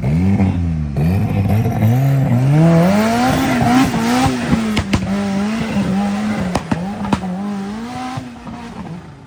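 Off-road competition 4x4's engine revving up and falling back repeatedly, with a few sharp knocks about five to seven seconds in. The engine fades toward the end.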